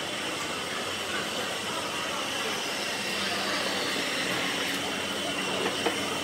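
Airport terminal concourse ambience: a steady hum of ventilation with faint background chatter of travellers, and one short sharp tick just before the end.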